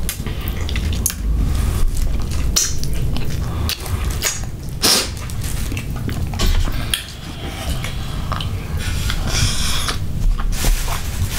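Close-up mouth sounds of eating: lip smacks and wet finger-sucking with many short sharp clicks, and a slurped sip from a cup near the end.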